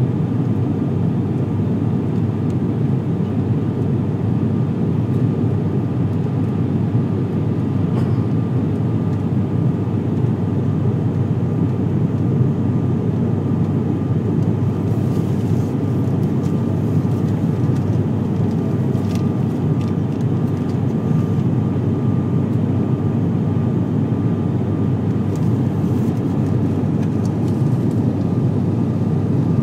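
ATR 72-500 twin-turboprop airliner in flight, heard inside the passenger cabin: its engines and propellers make a steady, unchanging drone, with a faint steady high whine over it.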